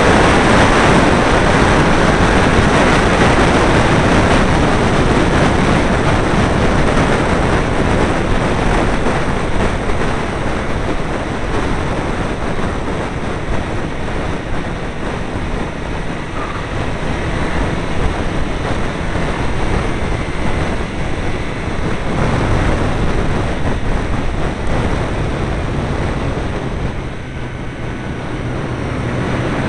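Heavy wind buffeting on the microphone of an open Caterham 7 at track speed, with the car's engine running underneath. The rush eases briefly near the end as the car slows for a turn, then builds again.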